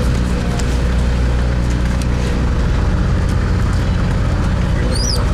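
A fishing boat's engine running with a steady low drone, over the rush of wind and water.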